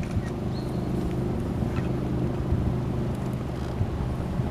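Cruise boat's engine running at a steady, even pitch: a constant low drone.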